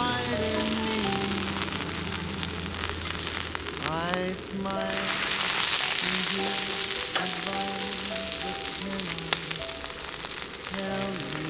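Meat sizzling on an iron griddle plate heated over a campfire, a steady frying hiss that grows louder about five seconds in, with background music playing.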